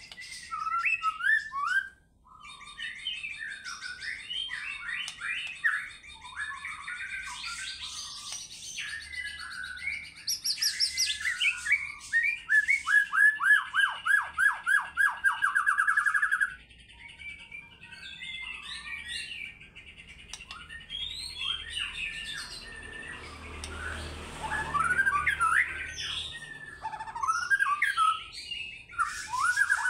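White-rumped shama (murai batu) singing a long, varied song of loud whistled phrases and chatters, with a fast run of repeated down-sweeping notes for about four seconds midway.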